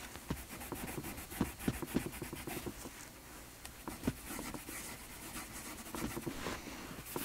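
Cloth loaded with shoe polish being rubbed in short, irregular strokes over a leather car armrest, a soft scratchy rubbing with small ticks.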